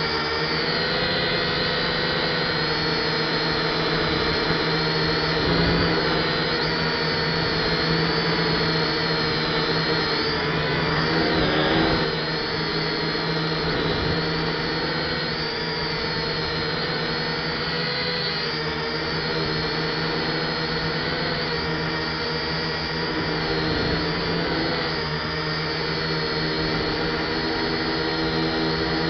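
F183DH quadcopter's motors and propellers whining steadily, heard from the drone itself, the pitch wavering up and down as the motors work against strong wind to hold attitude.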